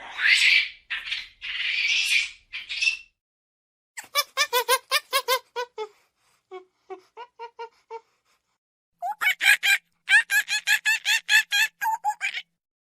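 Monkey calls: a few harsh screeches in the first three seconds, then bursts of rapid chattering at about five calls a second, quieter in the middle and loud again near the end.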